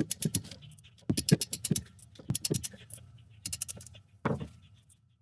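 Hand ratchet clicking in quick bursts of rapid clicks with short pauses between strokes, as exhaust manifold bolts are worked loose on a 5.7L HEMI engine.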